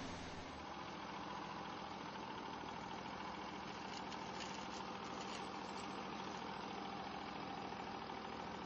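Portable band sawmill's gas engine running steadily, with a faint steady whine over it.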